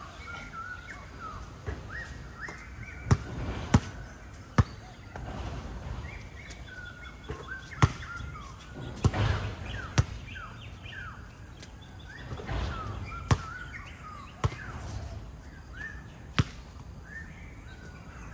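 Basketball game: sneakers squeak on the court in many short chirps, and the ball bounces with sharp, irregular thuds every second or few.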